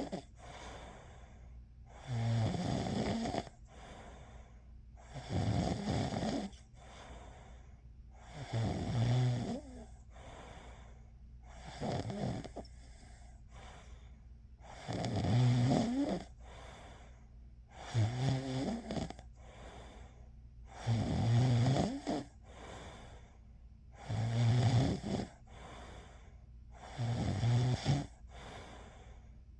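A person snoring in slow, regular breaths: nine loud snores, one about every three seconds, each lasting about a second, with fainter breath sounds between them.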